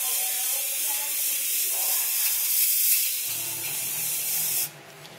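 Aerosol spray can of clear coat hissing steadily as it sprays a wet coat onto sheet metal, cutting off suddenly near the end.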